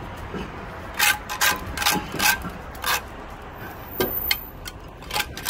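Steel mason's trowel scraping and tapping mortar onto the back of a veneer stone: a run of short, sharp scrapes at an irregular pace, over a steady low rumble.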